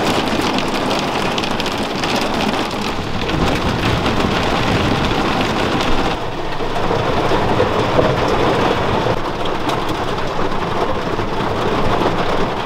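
Heavy rain pelting the windscreen and metal body of a parked campervan, heard from inside: a dense, steady patter of countless drops.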